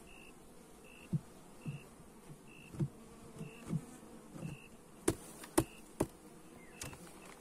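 Honey bees buzzing around an opened hive, individual bees flying close past with short rising-and-falling buzzes. A few sharp wooden knocks come about five to six seconds in as the hive's cover board is handled.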